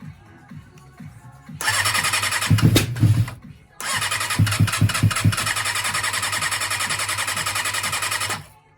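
Kawasaki ZXR400's inline-four being cranked on the electric starter in two attempts, a short one and then a longer one, with a few heavier thumps early in each as cylinders fire. Each attempt cuts off abruptly without the engine running on.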